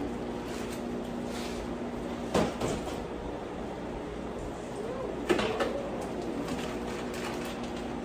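Two sharp knocks in a kitchen, about three seconds apart, each with a short ring after it, over a steady low hum.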